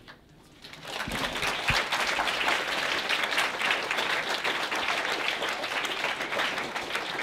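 Applause from a room full of people: many hands clapping together. It starts about a second in and carries on steadily.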